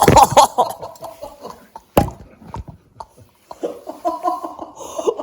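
People laughing and chuckling, with a single sharp thump about two seconds in.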